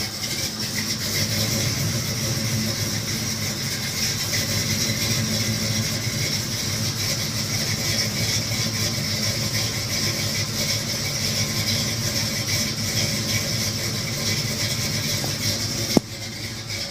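International Harvester Scout's throttle-body-injected engine running steadily, with a steady high whine over the low engine note. A sharp click comes near the end, after which the sound is quieter.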